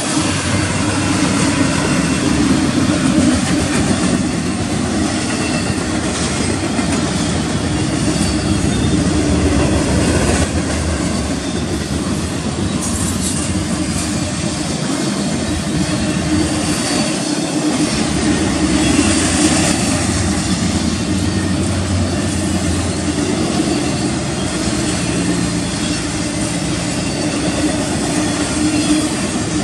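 Double-stack intermodal freight train's well cars rolling steadily past close by, a continuous rumble of steel wheels on the rails.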